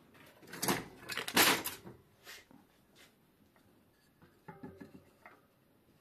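Tools clattering and knocking on a workbench as one is picked up, loudest in the first two seconds. A few light ringing metal clinks follow later.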